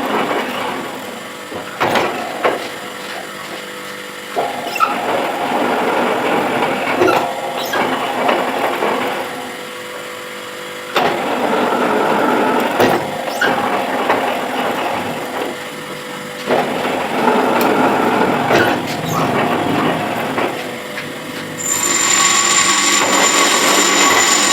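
Manual metal lathe running, with the cutting tool taking repeated passes of a few seconds each and short clicks between them. Near the end a steadier, higher whine sets in.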